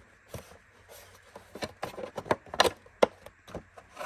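Irregular plastic clicks and knocks as the brush plate is handled and fitted back onto the base of a Bissell Powerforce bagged upright vacuum, about ten of them, the loudest a little past halfway.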